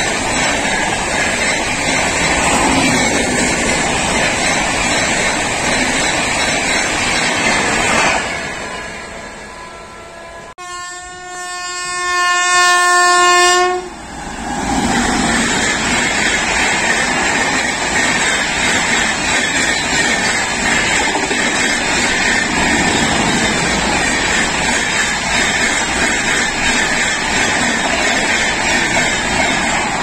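Indian Railways express trains passing a level crossing at speed, coaches and wheels running past with a steady rushing clatter. Partway through, a loud locomotive horn sounds once for about three seconds at one steady pitch, and then a second express runs past close by.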